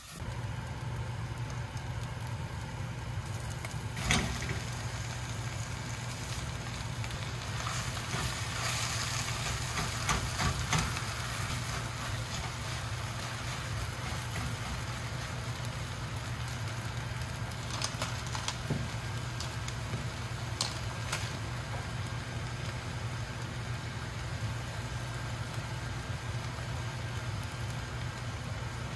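Food sizzling in a frying pan over a steady low hum, with a few sharp knocks now and then, loudest about four seconds in and again around ten seconds in.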